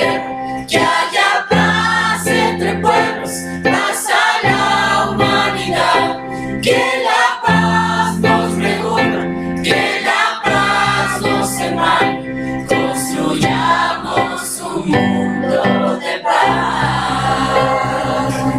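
A group of teenage voices, male and female, singing a Spanish-language song together, accompanied by an electronic keyboard holding sustained chords that change every few seconds.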